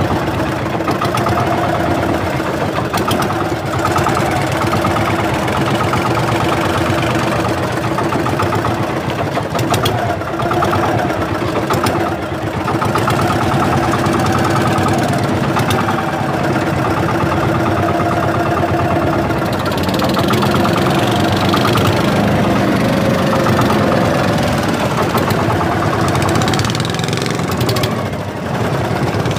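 Engine of a small motorized outrigger fishing boat (pumpboat) running at a steady speed while under way.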